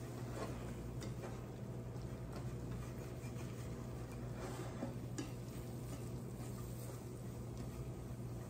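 Wire whisk stirring flour, butter and sliced onions in a stainless steel pan, with faint scattered scrapes and ticks against the pan, over a steady low hum. The roux is cooking to take out the raw flour taste.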